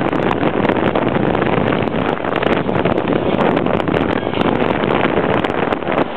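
Heavy exceptional-transport convoy passing close: a truck hauling a multi-axle low-loader makes a loud, steady rush of road and traffic noise, with wind buffeting the microphone.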